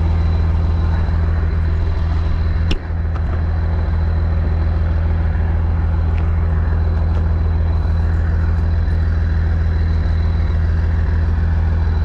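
Perkins diesel engine of a tractor running steadily under load while pulling a plough. A single sharp knock sounds about three seconds in.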